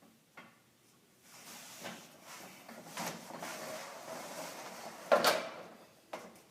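Pegboard panel being handled and fitted into a metal shelving endcap: scraping and light knocks, with one loud knock about five seconds in.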